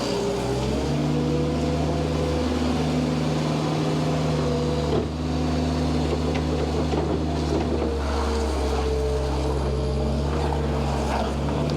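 An engine running steadily at a near-constant speed, its pitch drifting slightly, with wind noise.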